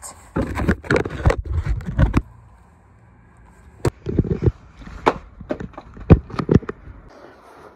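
Scuffing handling noise on a hand-held phone for about two seconds, then a string of irregular sharp knocks as it is carried over a concrete path.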